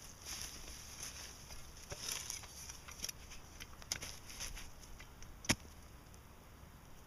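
Loose soil and leaf litter being scraped back into a small dig hole and pressed down with a gloved hand: rustling and scattered crunches, with one sharper click about five and a half seconds in.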